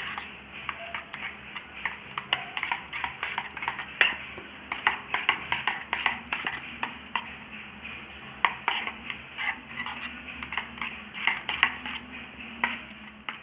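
A spoon clicking and tapping against a bowl while mixing beaten eggs with ground coconut paste into batter. The taps are quick and irregular, several a second.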